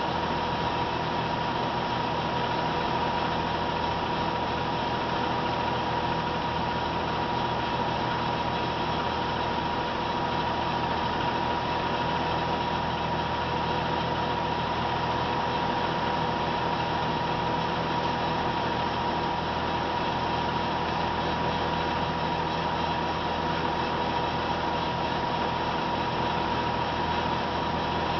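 Molins Mk8 cigarette-making machine running at a steady speed while it turns out rods: a continuous mechanical drone with a steady high whine over it.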